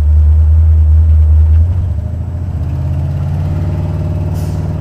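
Buick 455 Stage 1 V8 running with a heavy low rumble, its revs climbing from about two seconds in. The owner is listening for a driver-side valvetrain tick that shows above about 1,200 rpm and that he takes for a lifter. A short hiss comes near the end.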